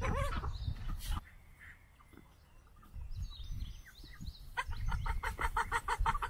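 Backyard flock of chickens and ducks calling as they feed, with small high peeps a few seconds in and a rapid even run of short clucking calls, about six a second, over the last second and a half.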